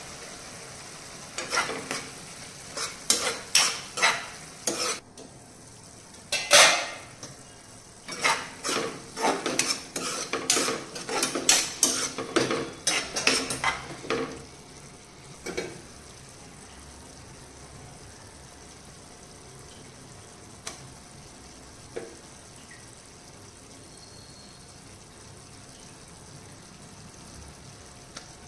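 A metal spoon stirring and scraping in a frying pan of thick tomato-onion curry, in a quick run of strokes and clinks over the first half. After that the curry simmers with a steady, quieter sizzle, broken by a couple of light clicks.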